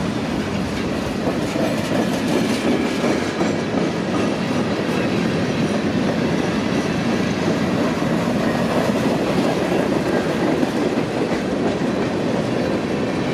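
Freight train cars rolling past close by, steel wheels running over the rail with a steady, even rolling noise.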